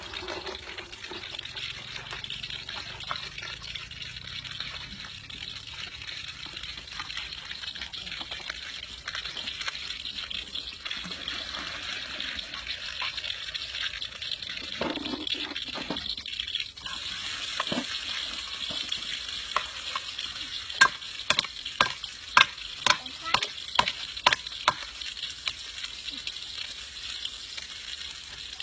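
Food sizzling in a pan with stirring, a steady hiss throughout. About two-thirds of the way in, a run of sharp knocks starts, roughly two a second.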